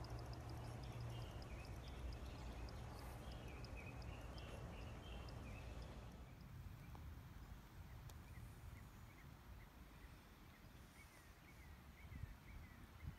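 Faint outdoor ambience: birds chirping again and again in short notes over a steady low rumble. A fast, even high ticking runs through the first half, then fades out.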